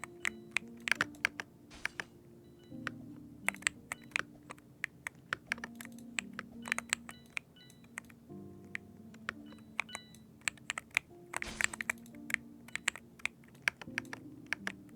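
Typing on a computer keyboard: quick, irregular key clicks throughout, over soft background music.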